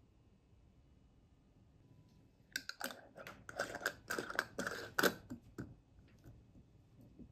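Metal screw lid being twisted onto a glass jar: a quick run of scraping clicks from the threads, starting about two and a half seconds in and lasting about three seconds, then a few faint ticks.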